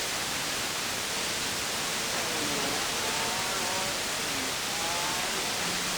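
CB radio receiver hissing with static between transmissions, with faint warbling traces of distant signals drifting in pitch under the noise. A steady low hum comes in near the end as another carrier keys up.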